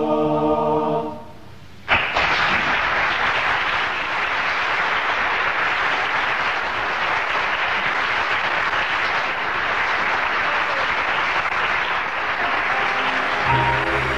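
A choir singing a 'la la la' line fades out about a second in. After a brief gap, an audience starts applauding suddenly and keeps up steady applause. Soft music begins under the applause near the end.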